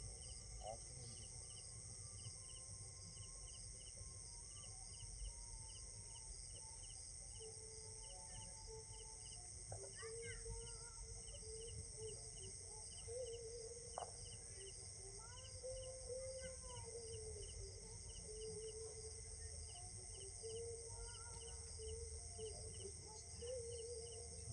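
Insects shrilling steadily outdoors, with a cricket-like chirp repeating at a regular pace over a low background rumble.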